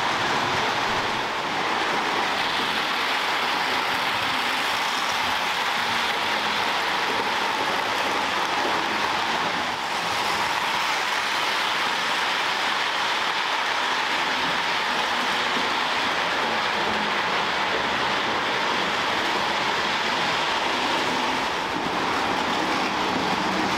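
Lionel O gauge model trains running on three-rail track: a steady whir and rattle of metal wheels rolling over the rails.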